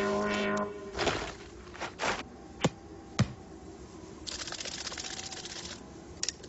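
Cartoon sound effects: two quick whooshes, then two sharp clicks about half a second apart, then a fine rattling buzz lasting about a second and a half, and a couple of small clicks near the end. The background music fades out just before.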